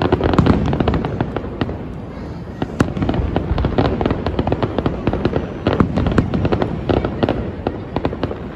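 Aerial fireworks bursting overhead: a dense, rapid crackle of many sharp pops a second over a low rumble.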